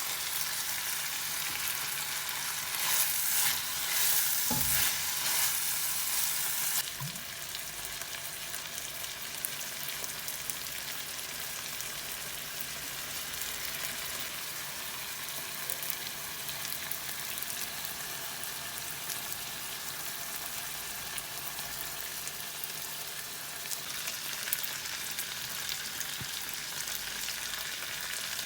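Food frying in a pan, a steady sizzle that drops abruptly to a lower level about seven seconds in. There is a single soft knock a few seconds in.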